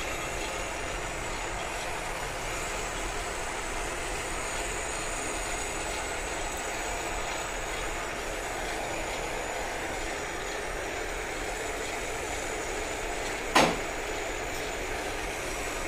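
Lathe running steadily with its power feed engaged while a boring tool cuts the bore of a brass gear. A single sharp knock sounds about thirteen and a half seconds in.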